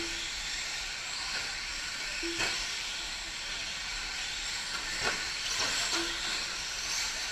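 Electric 4WD short course RC trucks racing on a dirt track, with a steady high-pitched hiss and whine from their motors and tyres that rises and falls as they accelerate. Sharp knocks come about two and a half and five seconds in.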